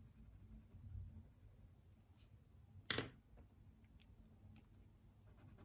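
Near silence with faint felt-tip marker strokes on paper, and one sharp click about three seconds in as the green marker is swapped for a pink one.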